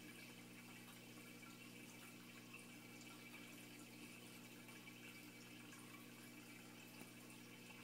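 Near silence: the faint, steady hum of a running aquarium pump with a light trickle of water.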